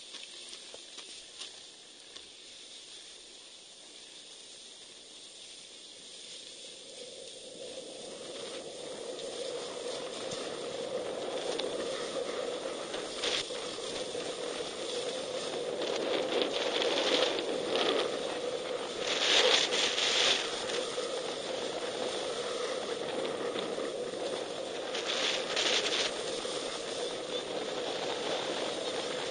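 Skis sliding and scraping over packed snow, getting louder as speed builds after several seconds, with louder scrapes on several turns.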